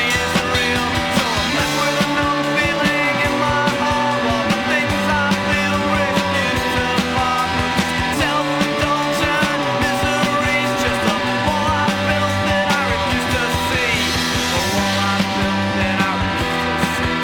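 Rock-style music with a steady drum beat and held chords, a chord pattern repeating every few seconds.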